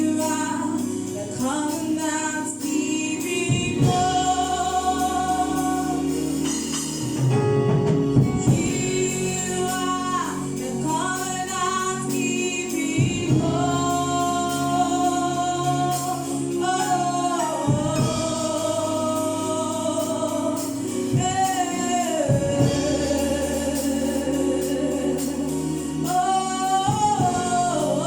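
A gospel choir singing a song, with bending, held sung notes over sustained low instrumental accompaniment.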